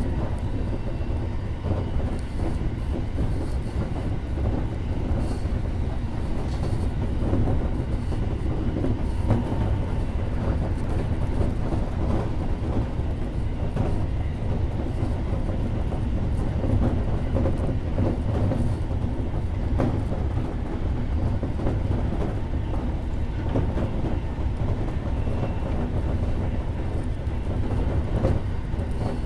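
Electric commuter train running at speed, heard from inside the driver's cab: a steady rumble of wheels on rail, with occasional faint clicks.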